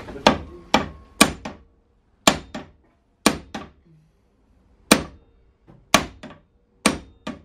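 Ball-peen hammer striking a hand-held metal tool set against a car's door-mirror mount, knocking the mirror off: about a dozen sharp metallic blows at an uneven pace, often in quick pairs, each with a brief ring.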